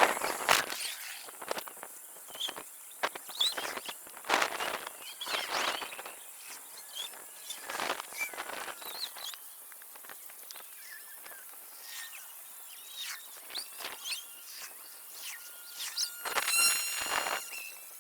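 Irregular rustling and crunching, like footsteps and gear being handled, with small birds chirping now and then. Near the end comes a brief squeaky sound.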